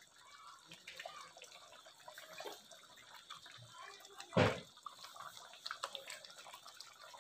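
Thick tomato-cashew curry simmering in an iron kadhai over a gas flame, its bubbles plopping and popping faintly and irregularly. A single louder knock comes about four and a half seconds in.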